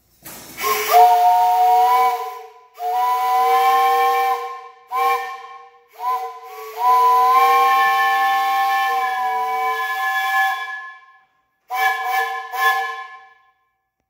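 3-inch three-chime Powell steam whistle, blown by pulling its cord, sounding a three-note chord with steam hiss. About seven blasts of varying length, the longest about four seconds near the middle, the pitch sliding up at the first as the valve opens.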